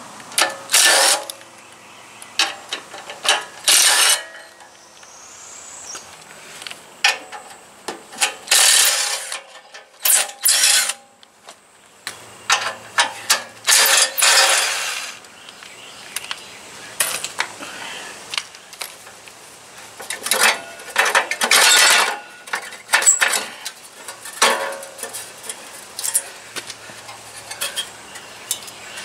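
Hand ratchet wrench clicking in short runs, again and again, as bolts are worked loose on a lawn tractor's muffler mounting.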